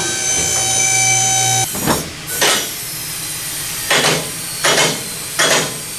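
Vehicle lift's electric hydraulic pump motor running steadily for about a second and a half and then cutting off, followed by several short hissing, clunking bursts over a low hum.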